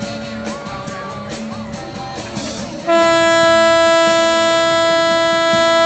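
Tugboat horn sounding one long, steady, loud blast that starts about three seconds in and holds to the end. A fainter, higher horn note is held through the first two seconds or so.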